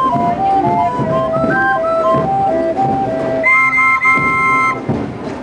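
Hand-cranked Harmonipan barrel organ playing a tune on its pipes. It closes on a held chord about three and a half seconds in, which stops a second later.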